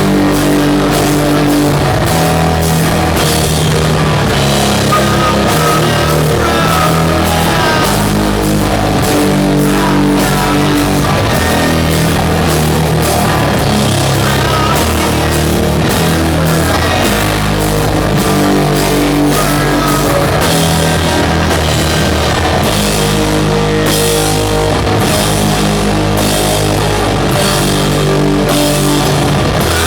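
Doom metal band playing live at full volume: a slow, heavy guitar and bass riff of held low notes over drums and crashing cymbals, without a break.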